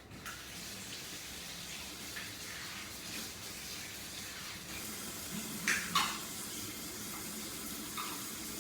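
Water running steadily from a kitchen tap as an espresso machine's portafilter is rinsed out, with a couple of sharp knocks about six seconds in and a fainter one near the end.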